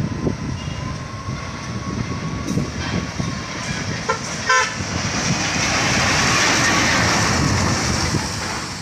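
Heavy road traffic with engines rumbling as vehicles pass, a short horn toot about four and a half seconds in, then a louder rush as a vehicle goes by close.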